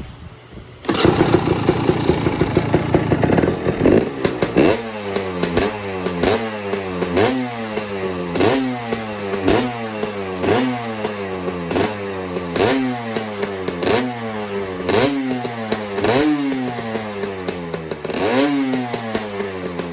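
2018 KTM 300 XCW's single-cylinder two-stroke engine with a Lectron carburettor and freshly rebuilt top end, warmed up and running. It comes in loud about a second in, then is revved with short throttle blips about once a second, each rev rising and falling back with a crack from the exhaust.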